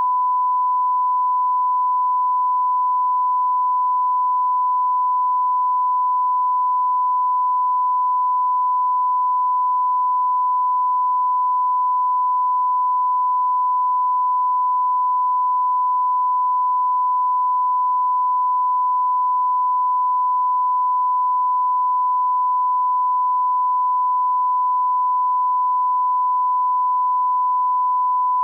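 A censor bleep: one steady pure tone held unbroken, blanking out the swearing.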